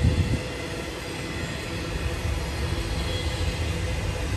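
Intermodal freight train cars rolling past, a steady low rumble of wheels on rail with a brief bump right at the start.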